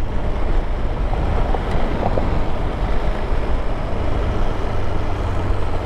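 KTM 390 Adventure single-cylinder motorcycle riding at low speed on a gravel dirt track: steady engine and tyre noise with a low wind rumble on the microphone.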